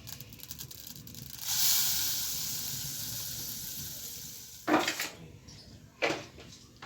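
Butter and flour start sizzling in a hot pan about a second and a half in, at the start of a roux for béchamel sauce, and the hiss fades slowly. Near the end a utensil knocks twice against the pan.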